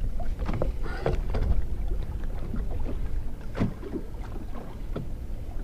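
Small fishing boat on choppy lake water: a steady low rumble with water slapping the hull, and a few light knocks.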